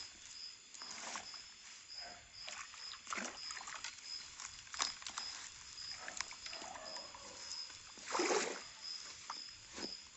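Stream water splashing and sloshing in a string of short bursts as a landing net is scooped through it and lifted out dripping, the biggest splash about eight seconds in. A high, pulsing insect call sounds behind it.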